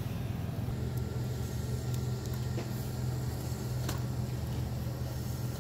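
A steady low machine hum, with a few faint clicks.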